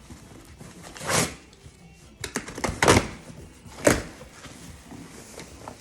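A cardboard shipping box being handled and opened: four short scraping rasps about a second apart, with a few sharp clicks among them.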